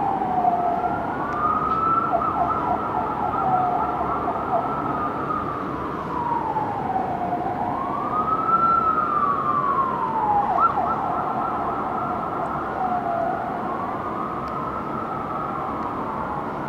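Sirens of a responding fire engine and ambulance wailing: two slow rising-and-falling sweeps that overlap out of step with each other, over a steady rumble of city traffic. The sirens slowly fade.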